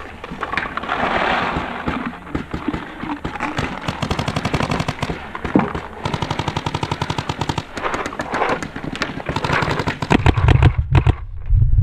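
Paintball markers firing rapid strings of shots, several runs of quick pops. A loud low rumble comes in about ten seconds in.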